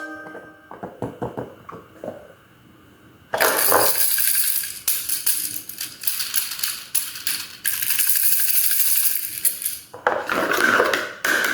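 Crackly, clicking handling noise in two long stretches, the first starting about three seconds in, as of objects being handled on a tabletop; a few soft clicks come before it.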